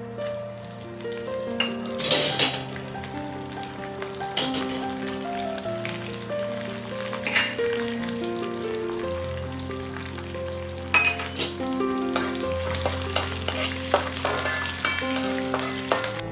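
Hot oil sizzling in an aluminium kadai as green chillies and ginger are dropped into frying dal and red chillies, the sizzle swelling louder several times as the pieces hit the oil. Background music plays throughout.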